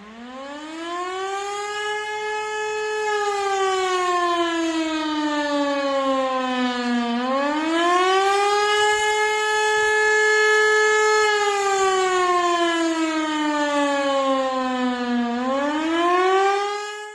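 Civil defence air-raid siren wailing: a hard, many-toned pitch winds up, holds, then slowly falls, rising again twice, and stops near the end. It sounds as the alarm for a missile-threat warning.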